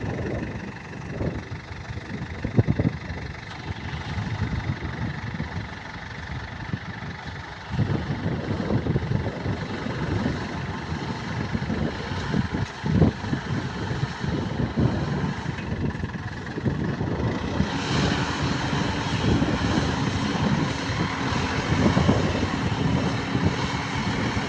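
Heavy diesel machinery engines running unevenly, with scattered knocks. About three quarters of the way through, an engine note grows louder and brighter, with a steady hum under it.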